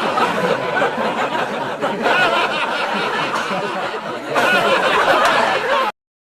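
Crowd of people laughing, many voices overlapping, cut off abruptly about six seconds in, then dead silence.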